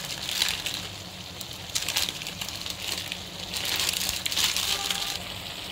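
Spiced chicken pieces and chicken mince sizzling in a steel kadai, a steady crackling hiss. A few short scrapes and clicks of a metal slotted spoon against the pan are scattered through it.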